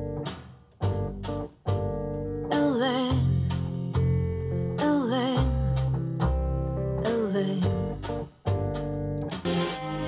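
A song with guitar, bass and short sung vocal lines, played through Wharfedale Diamond 11.1 bookshelf speakers and picked up in the room by a camera microphone.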